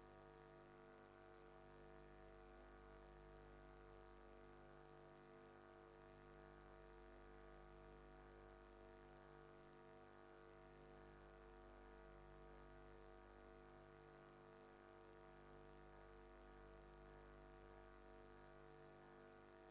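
Near silence: a faint, steady electrical hum with a thin high-pitched whine.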